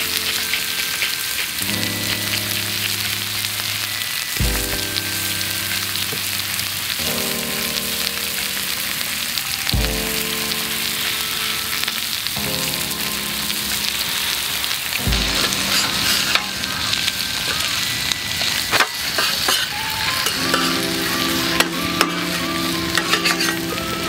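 Sliced pork belly sizzling as it fries on a hot griddle plate, a steady hiss throughout. In the second half metal tongs and spatulas click and scrape on the plate now and then. Soft background music plays underneath.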